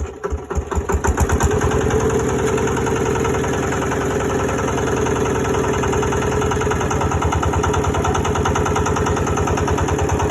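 A car engine fires and catches after failing to start, running unevenly for about the first second. It then settles into a steady idle with an even throb.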